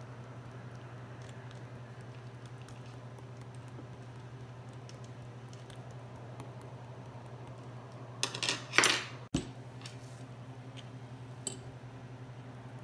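Metal fork tapping and scraping on a ceramic plate as grilled eggplant is pressed flat, in light scattered ticks over a steady low hum. A louder clatter of dish handling comes about eight seconds in, and a single click a little later.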